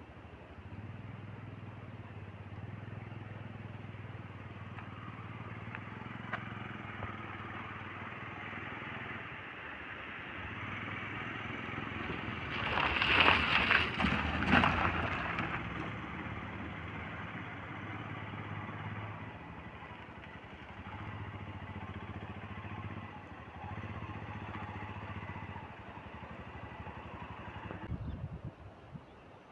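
Motor vehicle engine running steadily, with road noise. A louder, rougher vehicle sound swells and fades about thirteen to fifteen seconds in.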